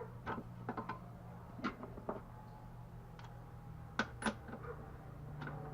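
Scattered light clicks and knocks of hand tools being handled on the vintage chainsaw, with two sharper knocks about four seconds in, consistent with getting a wrench onto the spark plug.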